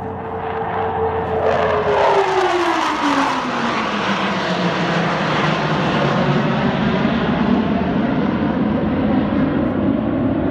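Five US Navy Blue Angels F/A-18 Hornet jets flying past in formation. A loud jet roar builds over the first two seconds, with a whine that drops steeply in pitch as they go by, then a steady roar as they pull away.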